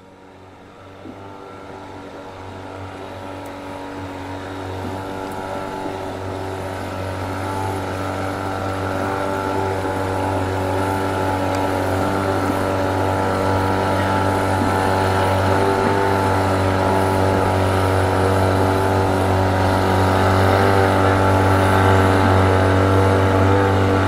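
Racing hydroplane boat engine approaching, with a steady pitch, fading in and growing steadily louder throughout.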